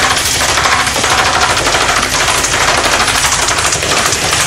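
Airsoft Steyr AUG rifle firing a long, continuous full-auto burst of rapid shots, with BBs striking a wine glass and the board behind it.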